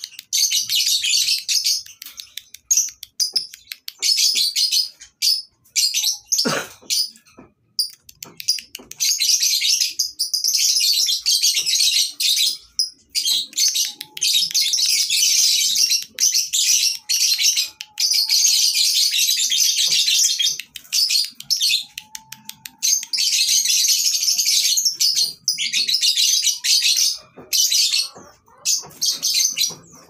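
Lovebirds chattering in long, dense, high-pitched runs of several seconds each, broken by brief pauses. There is one sharp knock about six seconds in.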